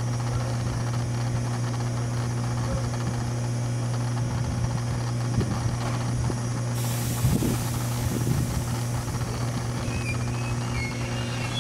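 A 413 series electric train standing at the platform, its onboard equipment giving a steady low hum. About halfway through a hiss of air joins in, with a few clunks around it.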